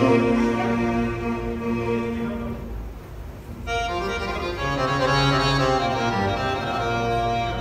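Instrumental backing music with sustained organ-like keyboard notes. It thins out about three seconds in, then comes back in fully with a new held chord.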